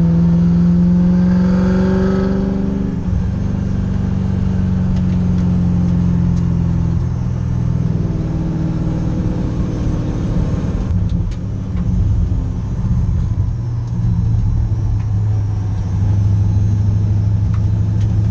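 Race car engine heard loud from inside its stripped, roll-caged cabin while lapping a track. The pitch rises under throttle over the first few seconds and then holds steady. About eleven seconds in the note falls to a lower, steady drone.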